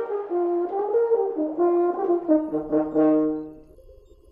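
French horn playing a short melody of held notes that step up and down, with a lower held note joining near the end. It stops about three and a half seconds in.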